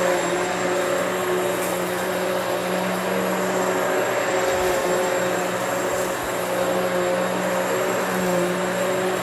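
Hoover Elite Swivel XL Pet upright vacuum cleaner running on carpet: a steady motor hum with airflow rush, wavering slightly a couple of times as it is pushed back and forth.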